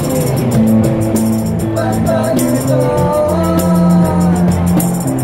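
Street buskers playing live music: sustained chords, a tambourine shaken on a steady beat, and a sung melody coming in about two seconds in.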